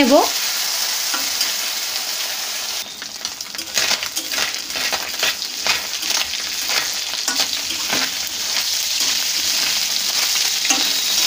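Small fish sizzling as they fry in hot mustard oil in a metal kadai. From about three and a half seconds in, a spatula scrapes and turns them against the pan in irregular strokes.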